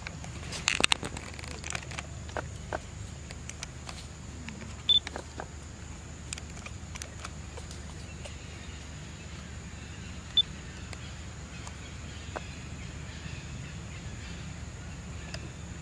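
Outdoor ambience: a steady low rumble with a cluster of sharp clicks about a second in, scattered fainter clicks after, and two very short high chirps about five and ten seconds in.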